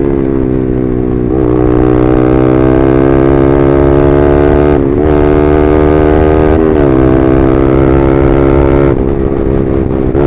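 Yamaha R15M's 155 cc single-cylinder engine running at speed through an SC Project full-system exhaust, a loud, steady, buzzy note. The pitch briefly dips about four times, as at gear changes.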